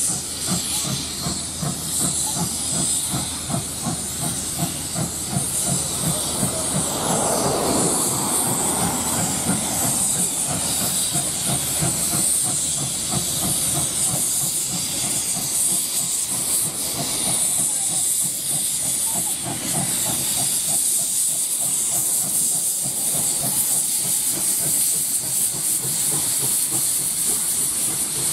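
NSW Z27 class steam locomotive 2705, built by Hunslet, working a train as it approaches and passes close by. Steam hisses steadily over a rhythmic exhaust beat, and the sound grows a little louder as it nears.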